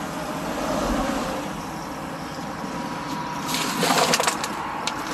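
Steady background noise, then from about three and a half seconds in a run of crackles and clicks from fingers handling the phone right against its microphone.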